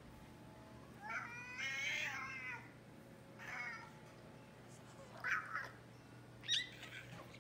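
A male American Shorthair cat making his squeaky calls, four in a row, the first long and wavering and the others short. This squeaky voice is what comes out instead of a normal meow when he is excited to play.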